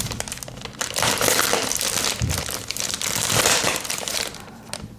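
A courier mailing bag being handled and crinkled: a continuous rustling crackle that dies down near the end.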